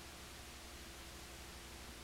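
Steady hiss with a low electrical hum and no game sounds: the noise floor of an old videotape recording.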